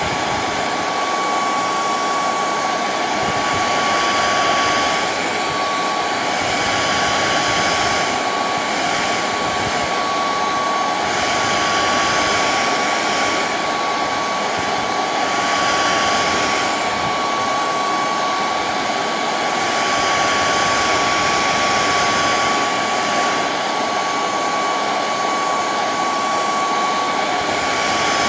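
Hair dryer on its hottest, fastest setting blowing steadily: a rush of air with a steady whine, swelling gently every few seconds as it is moved over a car cassette player's circuit board to heat its aging solder joints.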